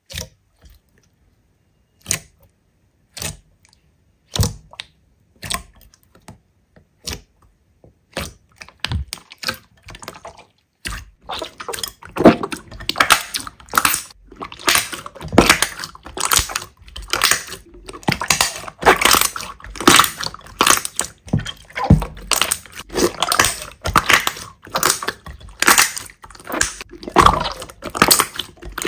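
Slime being squeezed and pressed by hand. At first there are only scattered sticky clicks and pops with silent gaps. About eleven seconds in, a dense, continuous crackling and popping begins.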